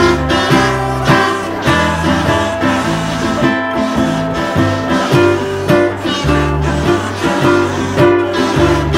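Ukulele ensemble strumming a song together in a steady rhythm, with a low bass line moving underneath.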